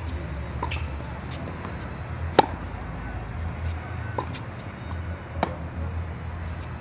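Tennis ball struck back and forth by rackets in a baseline rally: a handful of sharp pops a second or two apart, the loudest about two and a half seconds in, over a low steady hum.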